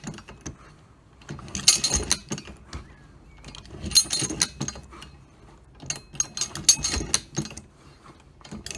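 Belt filling machine (Maxim .303 Mark II) being worked, its pawls and gears clicking while brass cartridges clatter through the feed block into the canvas belt. Louder bursts of metallic clatter come roughly every two to three seconds.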